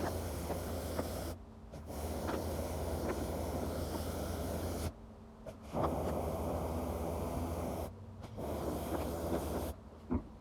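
Pressure washer spraying through a turbo nozzle: a steady hiss of the water jet over a low engine hum. It cuts off sharply and restarts three times, then stops near the end.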